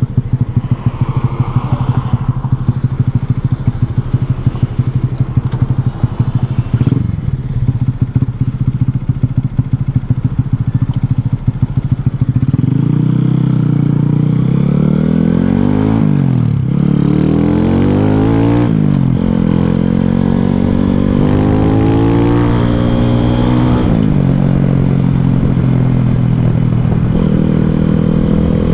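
Single-cylinder four-stroke engine of a 2021 Boom Vader pit-bike with a 141cc big-bore kit idling with an uneven, pulsing beat. About twelve seconds in, it revs up as the bike pulls away, its pitch rising and dipping again and again as it accelerates through the gears.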